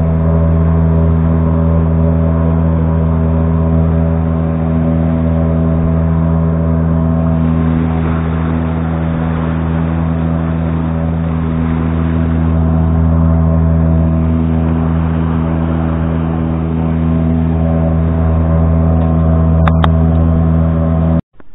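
Small outboard motor on an inflatable boat running at a steady, unchanging throttle, a constant loud drone, with water rushing past the hull of the boat it tows. It cuts off abruptly right at the end.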